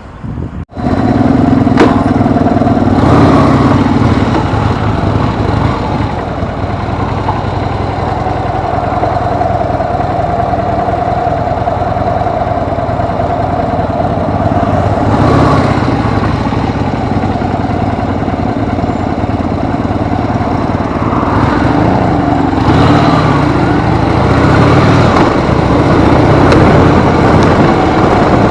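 Harley-Davidson motorcycle's V-twin engine running under way, its revs rising and falling again and again as the throttle and gears change.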